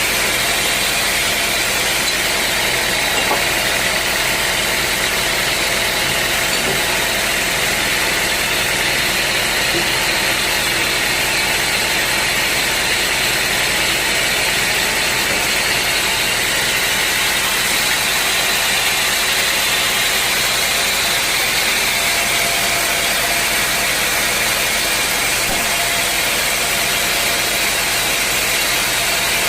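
Sawmill machinery running steadily, an even hiss and hum with a few faint steady tones, unchanged in level throughout.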